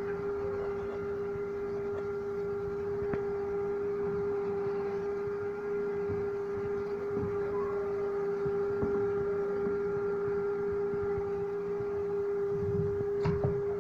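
A homemade electric egg incubator running: a steady, unchanging hum on one held tone with fainter overtones. A faint knock comes about three seconds in and another near the end.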